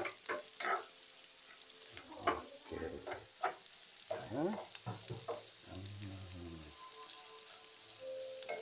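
Dried shrimp, small dried fish and chillies sizzling in hot oil in a frying pan, with a steady high hiss, while a wooden spatula stirs and scrapes them around the pan in quick strokes.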